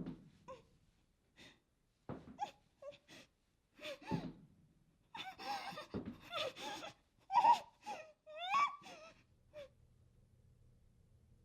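A person gasping and letting out short whimpering, moaning cries, in broken bursts that are loudest about two-thirds of the way through. Near the end the cries stop and a faint low hum is left.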